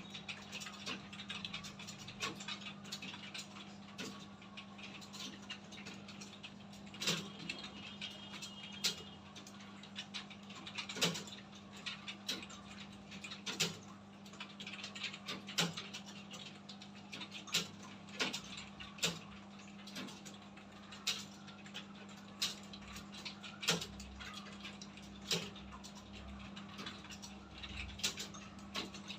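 Several people typing on computer keyboards: a dense, irregular clatter of key clicks, with a louder keystroke every second or two, over a steady low hum.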